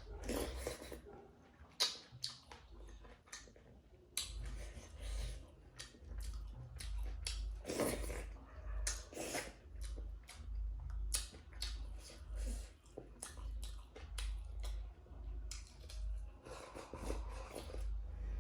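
Close-miked eating sounds: steady chewing with wet clicks and smacks of the mouth.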